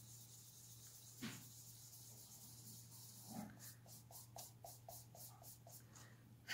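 Near silence: room tone with a steady low hum, a faint tap about a second in, and a run of faint quick ticks in the second half.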